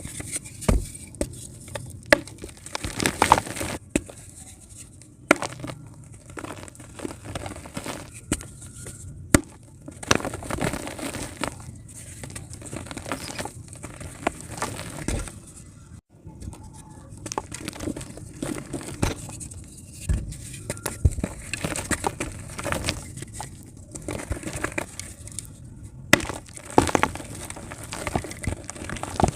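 Multani mitti (fuller's earth clay) crumbling and being crushed: an irregular run of crunches, crackles and sharp clicks. The sound cuts off abruptly about halfway through and picks up again.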